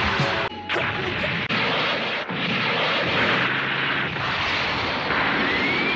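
Anime combat sound effects of armored mechs trading heavy automatic gunfire, a dense continuous barrage with bullet impacts. A rising whine enters near the end.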